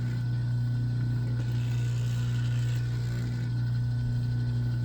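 Motor of a wire-stripping machine running steadily with a constant low hum, while heavy 400–500 MCM copper cable is fed through it.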